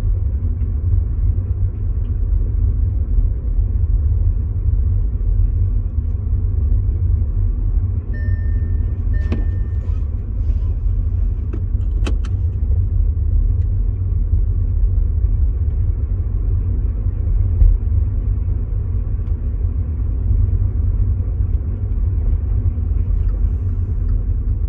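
VW e-Up electric car driving with a heavy, steady low rumble, the kind of noise from the rear axle that the owner is complaining about. A short two-part beep sounds near the middle, followed by a couple of sharp clicks.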